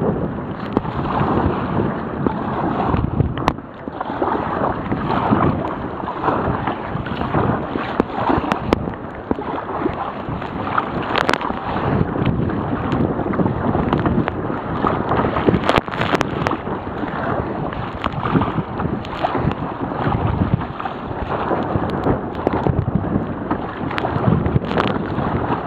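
Gale-force wind rushing over a waterproof camera worn by a sea kayaker, with water splashing around the kayak. Frequent sharp knocks and splashes come through the rush.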